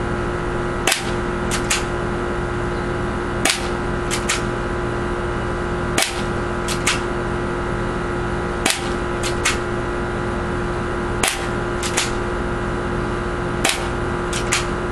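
Stinger P311 spring airsoft pistol fired six times, a sharp snap about every two and a half seconds. Each shot is followed by one or two lighter clicks, over a steady background hum.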